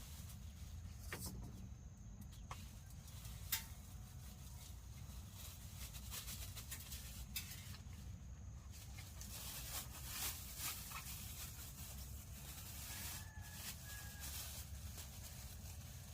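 Quiet outdoor rural ambience: a low steady rumble with scattered light clicks and knocks, one sharper click about three and a half seconds in.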